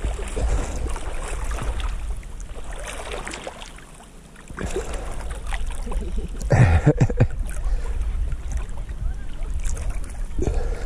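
Lake waves from a boat wake sloshing and splashing against a camera at the water's surface. It goes quieter for a moment about four seconds in, and there is a louder splash about halfway through.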